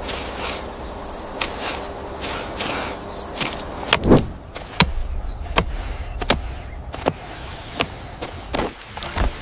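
A run of sharp, irregular knocks and thuds, roughly two a second, over a low steady rumble; the strongest knocks come about four seconds in and near the end.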